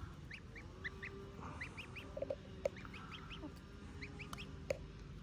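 Goslings peeping: a run of short, high cheeps, several a second, with a few lower calls mixed in.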